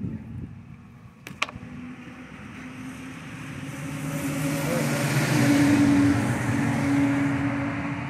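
A motor vehicle passing by: its engine hum and road noise grow louder to a peak about six seconds in, then begin to fade. A single sharp knock sounds about a second and a half in.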